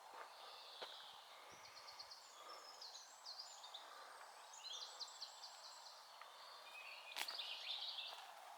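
A small songbird singing faintly: rapid runs of high trilled notes and chirps. A single sharp click comes about seven seconds in.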